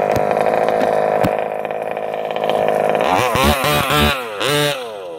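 Small two-stroke gas engine of a large-scale RC buggy, running at a steady pitch, then revving up and down in several quick sweeps from about three seconds in as the buggy accelerates away.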